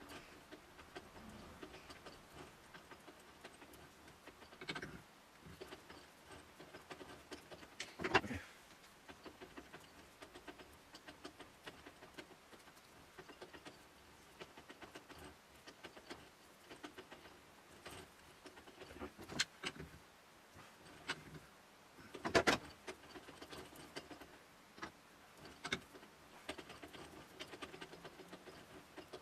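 Sparse metallic clicks and knocks from adjusting the jaws of a lathe's four-jaw chuck, the loudest about 8 and 22 seconds in.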